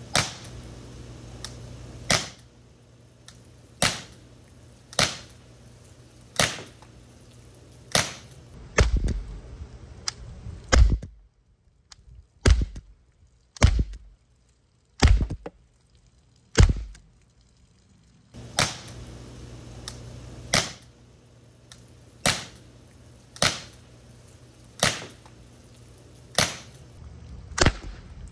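A series of about twenty shots from a CO2-powered .50-calibre Mercury Rise Torpedo Revolver (TR50), each a sharp pop, fired roughly every second and a half during a chronograph velocity test.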